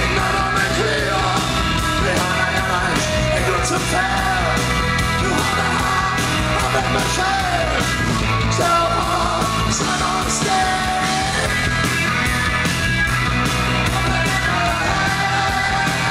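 Live post-punk band playing loud through a PA: a male singer yelling and singing over electric guitar and drums with a steady beat.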